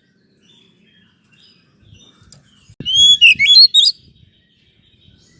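Oriental magpie-robin singing: after a faint start, one loud, fast phrase of varied whistles and chirps about halfway through.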